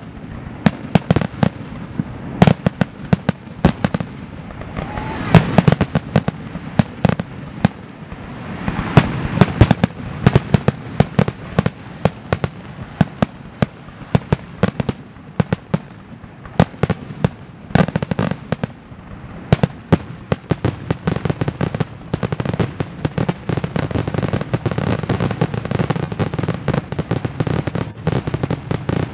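Aerial fireworks shells bursting in a dense barrage, several sharp bangs a second with no pause.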